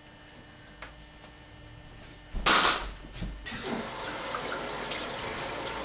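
Water running in a bathroom: a sudden loud rush about two and a half seconds in, then a steady hiss of flowing water.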